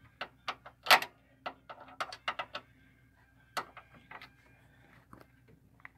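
Ratcheting wrench clicking as it tightens a nut on a cable's ring terminal, in irregular runs of sharp clicks that thin out after about two and a half seconds, with one more sharp click a little later.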